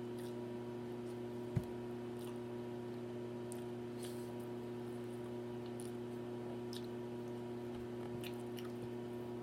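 Faint wet mouth clicks and smacks of a person chewing food, scattered about once a second, over a steady low hum. A single soft thump about one and a half seconds in.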